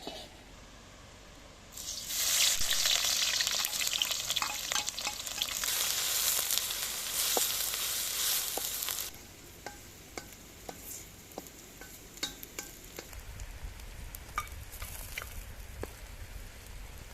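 Food frying in hot oil in a pan. A loud sizzle starts suddenly about two seconds in and falls away after about seven seconds, leaving scattered crackles and pops.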